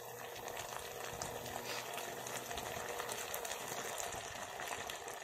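Soy sauce simmering around fried blue marlin (malasugi) steaks in a pan: a steady bubbling with many small pops.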